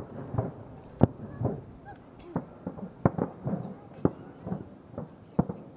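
Aerial fireworks shells bursting in a rapid sequence: sharp reports each followed by a short echo, the loudest at the start, about a second in, at about three and four seconds, and near the end, with smaller pops in between.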